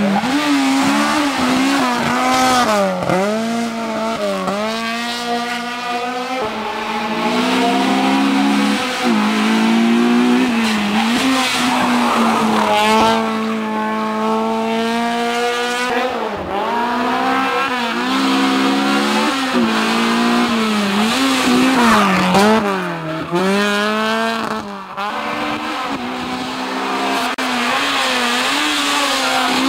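Honda Civic Type-R race car's four-cylinder engine revving hard, its pitch repeatedly climbing and then dropping sharply at gear changes and lifts as the car takes the bends and passes.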